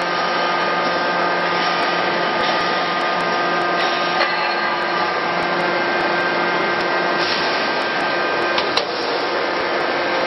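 Forge-shop machinery running with a loud, steady drone and hum. Two light knocks come through it, about four seconds and about nine seconds in.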